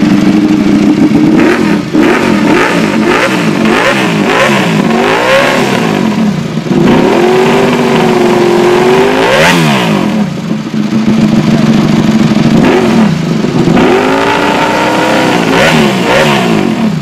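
Ducati Desmosedici RR's V4 engine idling just after start-up and being revved with the throttle. It gives a run of quick blips a few seconds in, one higher rev about ten seconds in and another burst of revs near the end, dropping back to a steady idle between each. It revs up and falls back quickly, which is put down to there being no flywheel.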